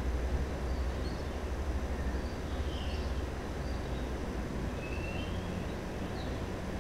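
Steady hiss from a 432 MHz SSB transceiver's receiver, tuned to a moonbounce contact. The weak JT65 signal lies buried in the noise and no tone stands out. Under it is a low rumble, with a few faint, short high chirps.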